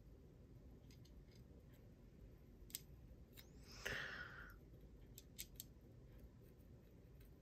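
Mostly near silence while digital calipers are worked on a knife blade: a few faint small clicks, and one short scrape about four seconds in as the caliper jaw is slid open and reset on the blade.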